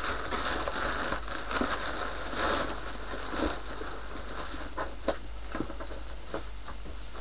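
Paper and cardboard packaging rustling and crinkling as a parcel is opened and its contents handled, busiest in the first few seconds, then a few light taps and knocks.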